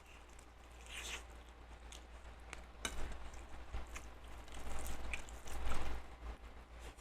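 A person chewing and eating soft rice and chicken close to the microphone: irregular wet mouth sounds, with a few sharp clicks and louder bursts about three seconds in and near the end.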